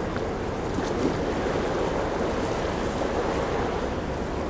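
Steady rushing noise of a container ship passing close by, water washing along its hull, mixed with wind on the microphone.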